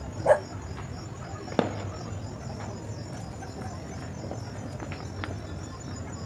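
Dog barking once at the start over a steady chirring of crickets; about a second and a half in, one sharp crack.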